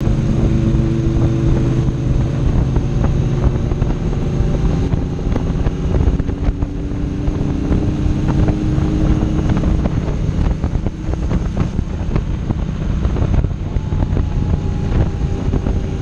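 Triumph Bonneville T120's parallel-twin engine running steadily at road speed, with heavy wind noise buffeting the handlebar-mounted camera's microphone.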